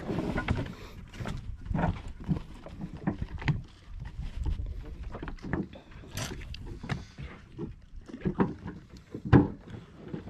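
A small fishing boat on the water: irregular knocks and clunks over a low rumble, with one louder thump about nine and a half seconds in.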